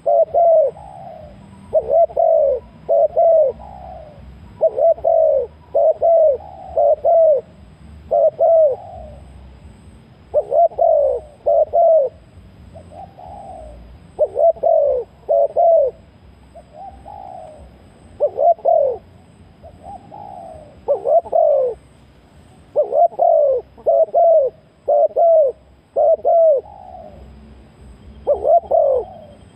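Spotted dove cooing: short notes that each fall in pitch, mostly in runs of two or three, repeated over and over with brief pauses between the runs.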